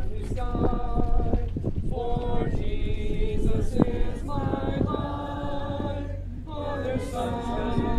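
Unaccompanied singing, with held notes that move from pitch to pitch every half second to a second and a brief pause near the end, over a steady low hum.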